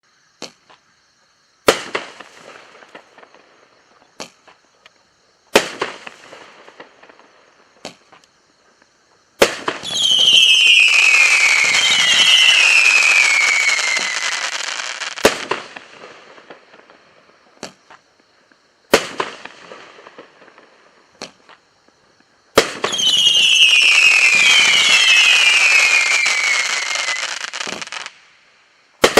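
Winda 'Rowdy Party' consumer firework going off: a string of sharp bangs, each trailing off in crackle. Twice comes a long hissing spell of about five seconds with two falling whistles in it, the second cutting off suddenly just before a final bang.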